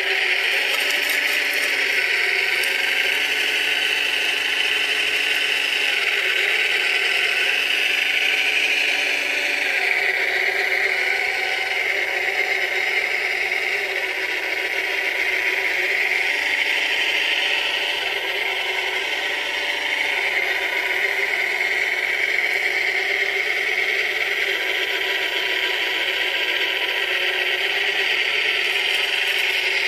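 Small electric motors and gearboxes of a radio-controlled scale-model Cat 966 wheel loader whirring and rattling as it drives and works its bucket, the pitch rising and falling with the load.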